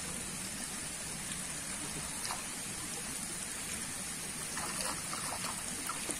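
Steady trickling and splashing of water in a fishpond, with a few faint clicks.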